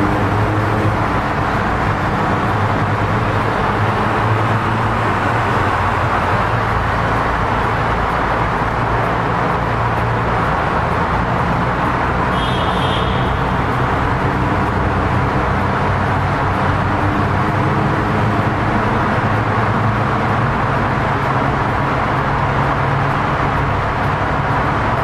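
Car engines running amid steady traffic noise, with engine tones shifting in pitch as vehicles idle and pass. A brief high-pitched tone sounds about halfway through.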